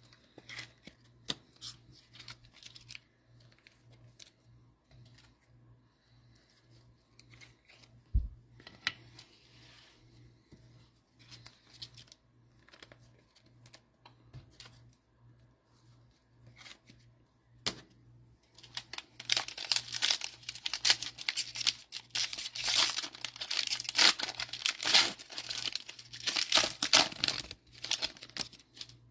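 Foil wrapper of a Panini Mosaic football card pack being torn open and crinkled in the hands, loudest and most continuous over the last ten seconds. Before that come scattered light clicks and rustles of cards being handled, and one dull knock about eight seconds in.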